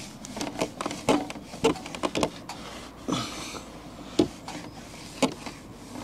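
Soapy sponge scrubbing and wiping the plastic frame of a caravan roof skylight: an uneven run of short rubs and knocks, with a brief hiss about three seconds in.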